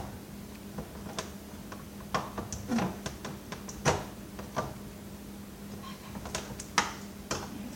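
Irregular clicks and light knocks of hard plastic vacuum cleaner parts being handled and pried at with hand tools, over a faint steady hum.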